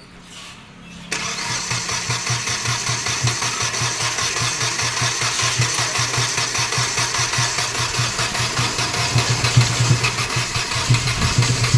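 Hyundai Xcent's diesel engine started on the starter, catching about a second in, then running on with an even pulsing beat. This is the engine's first start after a timing chain and head gasket rebuild.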